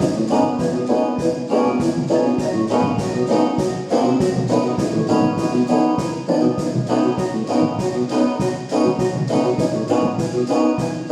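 Music with a steady beat and sustained organ-like keyboard chords.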